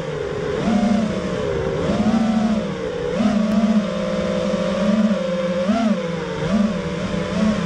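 FPV freestyle quadcopter's brushless motors whining steadily, their pitch swooping up and down again and again as the throttle changes.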